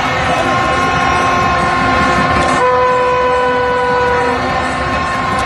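Stadium crowd noise with fans blowing horns: several steady horn tones overlap. A lower, louder horn joins about halfway through and holds for nearly two seconds.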